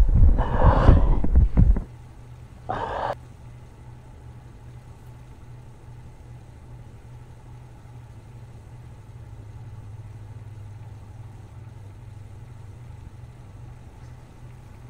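A loud, low rumbling roar that cuts off suddenly about two seconds in. It is followed by one short burst of noise about a second later, then a faint, steady low hum.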